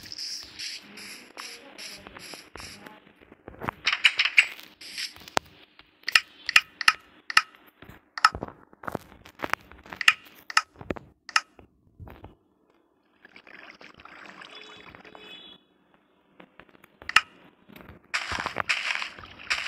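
Hand tools working wood: scraping and a run of sharp taps or knocks, about two a second through the middle, with two brief drop-outs where the sound cuts off.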